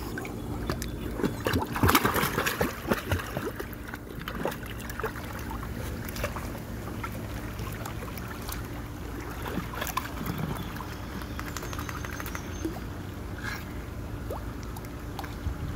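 Pool water splashing and sloshing as a dog paddles through it, with a louder stretch of splashing about two seconds in. A steady low hum runs underneath.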